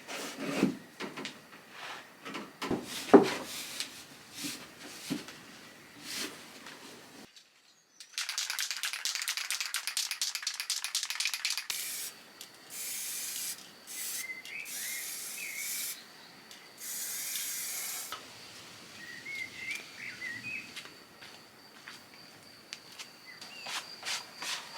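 Workshop hand work. For several seconds there are separate knocks and taps. Then comes a long spell of fast rubbing strokes, like sanding, followed by shorter spells of rubbing a second or two long. Faint bird chirps come twice in the background.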